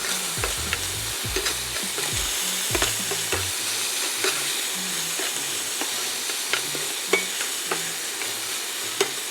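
Diced bacon frying in a pan as its fat renders: a steady sizzling hiss with scattered small pops.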